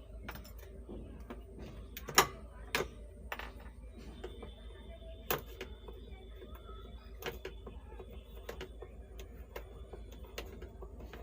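Sharp, irregular clicks and taps of hand tools on an amplifier's circuit board while its volume potentiometers are taken out, over a steady low hum. The loudest snap comes about two seconds in, and a faint high whine runs through the second half.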